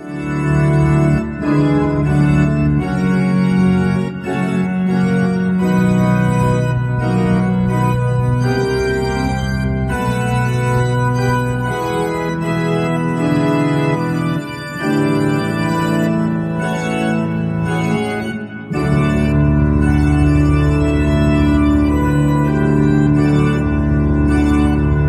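Pipe organ playing loud full chords that change every second or two, then, after a brief break, one long held chord with a deep pedal bass.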